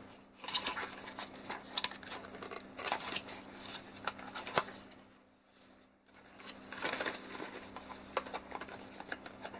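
Black foam packing insert and box being handled and pried apart around a battery charging hub: bursts of rustling and scraping with small clicks, a quiet pause a little past halfway, then more rustling.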